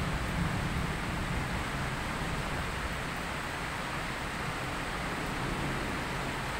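Heavy rain pouring steadily, a dense even hiss with a low rumble underneath.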